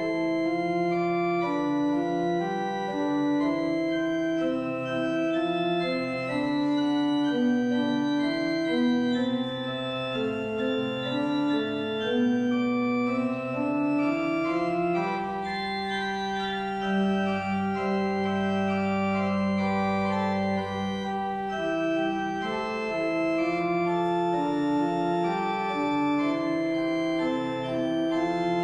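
Organ playing a postlude: sustained chords with a melody moving above them, and a long low pedal note held for a few seconds around the middle.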